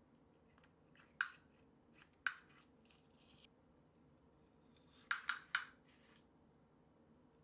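Small round retractable tape measure clicking as its tape is pulled out: a sharp click about a second in, another about two seconds in, then three quick clicks around five seconds in.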